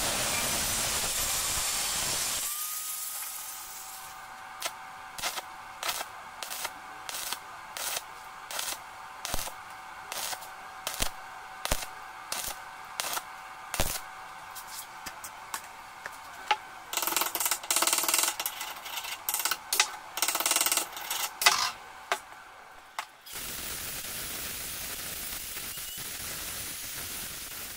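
An angle grinder cutting through a steel tube, then a stick (arc) welder striking the arc over and over in short crackling bursts to tack the joint, followed by a denser run of crackling as the weld is laid. Near the end the angle grinder runs steadily again, grinding the weld bead down with sparks.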